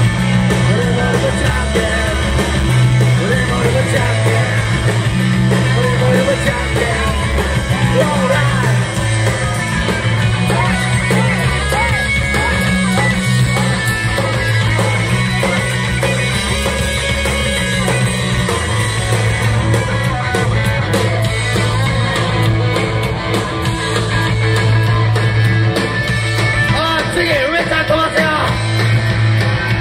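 Rock band playing live and loud: drum kit, electric guitar and bass, with a sung vocal over the top, all without a break.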